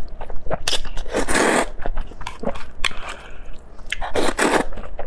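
Close-miked eating sounds: a person biting and chewing food. There are two longer noisy bursts about three seconds apart, with short clicks in between.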